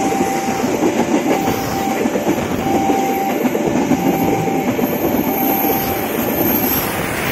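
Economy-class passenger coaches rolling past at close range, their wheels running along the rails. Over it a level crossing warning sounds two alternating tones, switching about every 0.7 s.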